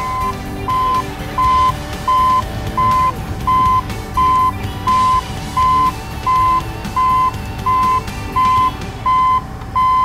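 A vehicle's reversing alarm beeping steadily, about three beeps every two seconds, over a low engine rumble, with faint background music underneath.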